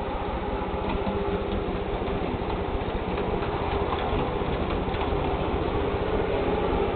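Hornby OO-gauge model tank locomotive running smoothly along the track: its small electric motor makes a steady whirr, with light scattered ticking of the wheels on the rails.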